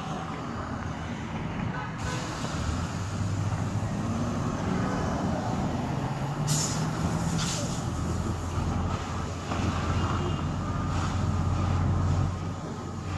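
A fire engine's engine runs with a steady low drone while a fire hose sprays water onto a burning car. The hiss of the spray and steam picks up about two seconds in, with two louder bursts about six and a half and seven and a half seconds in.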